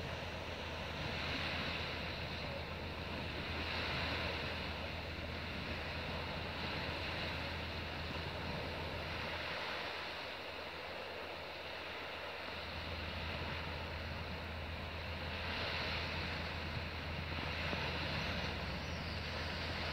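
Sea surf washing on the shore below, a hiss that swells and falls every few seconds, over a steady low rumble that drops away for a couple of seconds midway.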